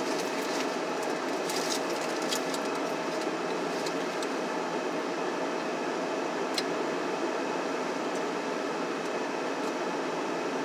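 Steady whooshing hum of a car's heater fan blowing in the cabin, with a faint steady tone running through it. A few soft clicks from handling and eating the sandwich come in the first three seconds and once more about six and a half seconds in.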